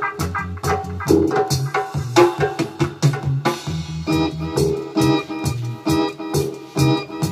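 Reggae 12-inch vinyl record playing on a turntable: a heavy bass line and drum beat, with sustained keyboard chords coming to the fore about halfway through.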